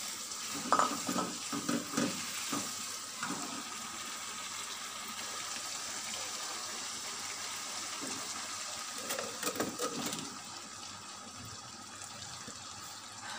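Beef stock (yakhni) being poured into a hot pan of fried minced beef, masala and capsicum, the liquid splashing and sizzling as it hits the pan. A few knocks on the pan sound in the first few seconds and again about nine seconds in, and the hiss eases a little near the end.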